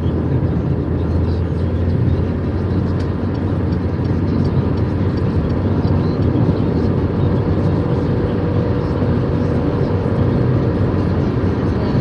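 Steady low engine and road rumble heard from inside the cabin of a moving car.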